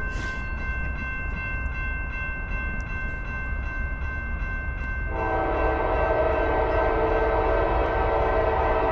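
Nathan K5LA five-chime air horn on an approaching Norfolk Southern AC44C6M freight locomotive blowing one long chord, starting suddenly about five seconds in. A steady low rumble lies beneath it, and a faint steady high tone is heard before it.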